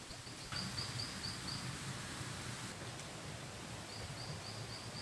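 Forest ambience: a steady hiss with a high, evenly pulsed chirping call, about five chirps a second, heard twice: about half a second in and again near the end.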